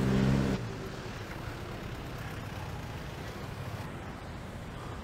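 Road traffic: a steady low engine drone from a nearby vehicle cuts off abruptly about half a second in, leaving a faint, even hum of passing traffic.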